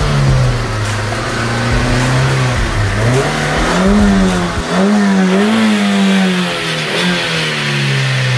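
Nissan Micra's small petrol engine revved repeatedly while the car stands still. The pitch climbs, wavers high for a few seconds, then falls back toward idle near the end.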